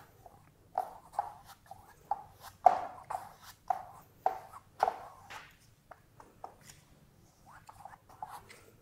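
Paintbrush dabbing paint onto a canvas: a run of short, irregular taps, most of them in the first six seconds and fainter after that.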